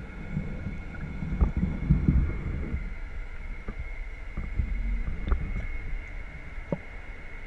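Air bubbling and water churning in an aerated seaweed tank, heard from underwater through the camera housing: a low, uneven rumble with scattered clicks and knocks. A steady high whine runs underneath.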